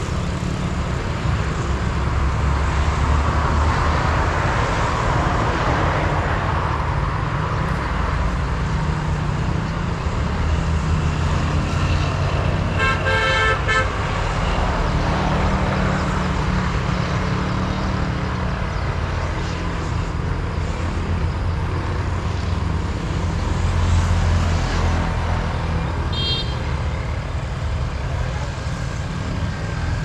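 Road traffic passing with a steady rumble, and a vehicle horn sounding once for about a second near the middle.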